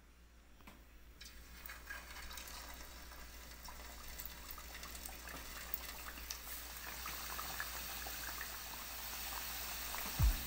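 Hot cooking oil sizzling and crackling as peach mango pies deep-fry in a pan. The sizzle starts about a second in and grows steadily louder as more pies go into the oil.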